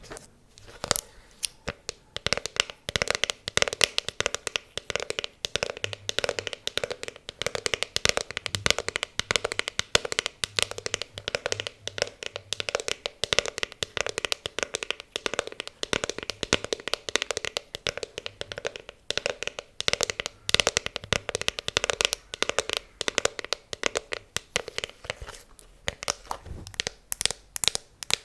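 Fingers tapping quickly on an object for ASMR, many sharp taps a second, starting about a second in.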